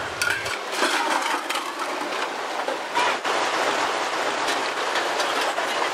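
River water splashing and sloshing as stainless steel plates are rinsed by hand, with a couple of light knocks about three seconds in.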